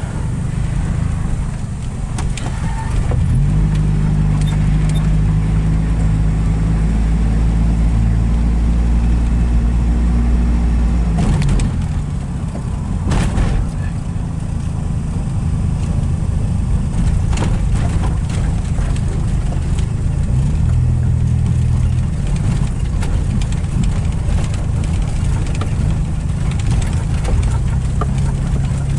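Engine and road noise heard from inside the cabin of a vehicle driving slowly over a muddy, debris-strewn road: a steady low engine hum whose pitch shifts a little about halfway through, with a few sharp knocks from bumps and rattles.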